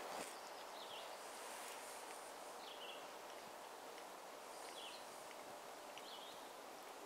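Quiet forest ambience with a small bird's short high chirps, about four of them roughly two seconds apart.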